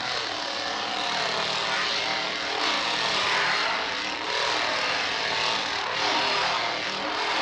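A motor running loud and harsh, its pitch rising and falling again and again as it is revved.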